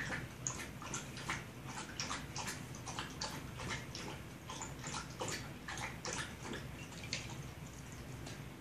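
A dog lapping water from a bowl, quick wet laps at about three a second, thinning out near the end.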